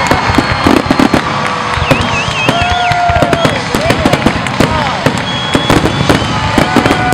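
Fireworks grand finale: a dense, continuous barrage of booms and crackling bursts, with whistling tones rising and falling over them.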